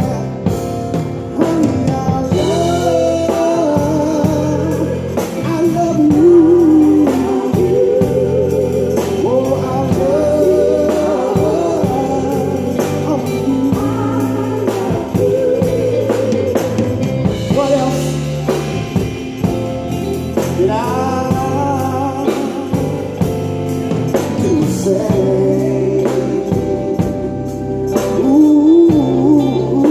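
Live band playing a song, with a singer's voice bending and gliding over bass and drums.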